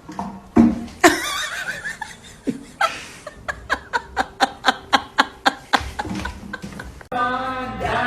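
A person laughing in a run of short, quick bursts, about four a second.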